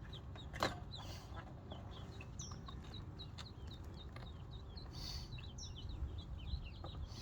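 A brood of ducklings peeping rapidly and continuously, many short high chirps each dipping in pitch. A single sharp knock sounds about half a second in.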